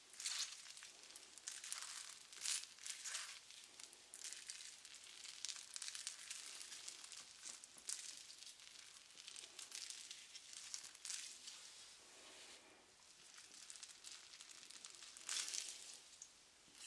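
Irregular crinkly rubbing strokes of a soft sponge wiped and pressed close to the microphone, with a few louder strokes near the start and a loud one about three-quarters of the way in.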